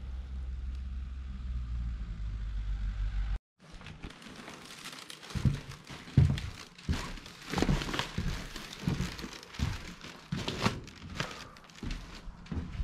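Footsteps on a snow-covered walkway, irregular crunching steps about one to two a second. Before them a low steady rumble runs for about three seconds and cuts off suddenly.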